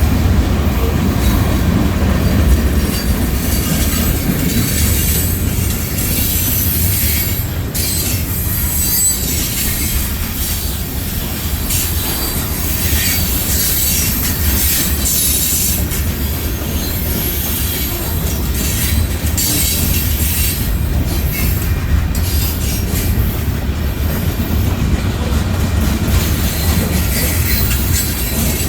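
Freight cars of a Union Pacific mixed freight, including old hopper cars, rolling steadily past: a continuous loud rumble of steel wheels on the rails, with a high-pitched wheel squeal and hiss above it.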